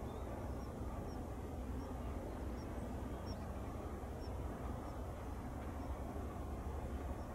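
Steady low harbour rumble, with a small bird's faint, high chirps repeating every half second or so.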